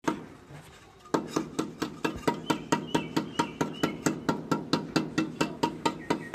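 Steel trowel scraping and tapping against fresh cement plaster in quick, evenly spaced strokes, about four or five a second, as a design is carved into the render.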